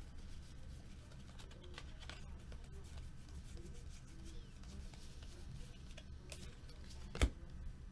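Faint handling of a stack of trading cards being thumbed through, with light slides and flicks of card against card over a low steady hum. A single sharp tap a little past seven seconds in.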